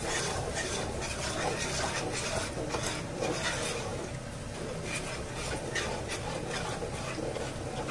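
Wooden spatula stirring a thin, watery tomato sauce in a non-stick frying pan, with a continuous wet swishing and many short scrapes against the pan.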